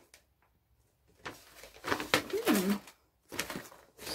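Crinkling and rustling of parcel packaging being handled in a few short bursts. About halfway through comes a short, low tone that rises and then falls.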